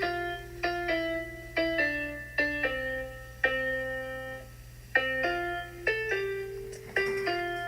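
Music: a slow melody of single piano notes, each struck and left to fade, with one longer held note in the middle.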